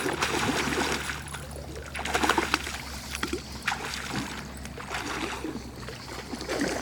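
Running river water with scattered splashes and sharp clicks over a low steady hum.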